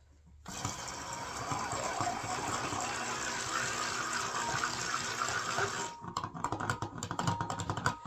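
Stick blender whirring in liquid cold-process soap batter in a glass jug. It runs steadily for about five seconds, then is switched on and off in short pulses. This is blending the batter to bring it to trace and thicken it.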